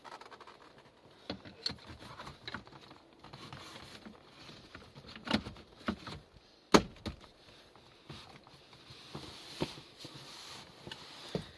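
Scattered clicks, taps and knocks of plastic car dash trim panels being handled and fitted, with one sharp knock about seven seconds in.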